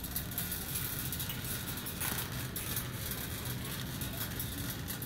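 Wire shopping cart rolling over a hard store floor, its wheels rumbling and the basket rattling with many small clicks.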